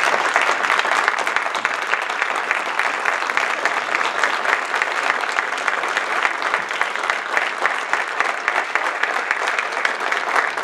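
A roomful of people applauding, many hands clapping in a dense, steady patter.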